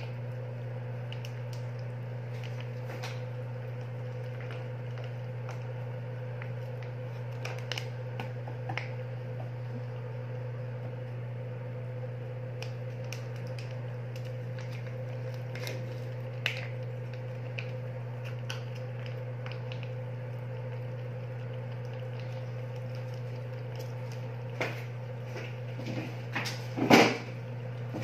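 A cat eating wet food from a stainless steel bowl: faint scattered clicks of chewing and licking over a steady low hum. A brief louder knock comes near the end.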